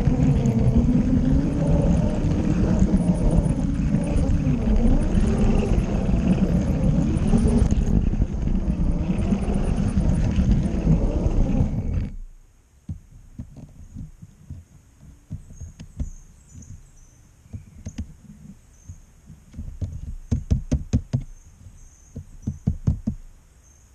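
A LEGO train's motor running with a wavering whine as its wheels rattle over plastic LEGO track. The sound cuts off abruptly about halfway through, leaving a quieter background with scattered light clicks and faint high chirps.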